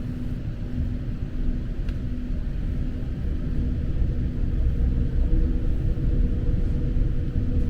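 Passenger train running along the tracks: a steady low rumble with faint steady hums that change pitch about five seconds in.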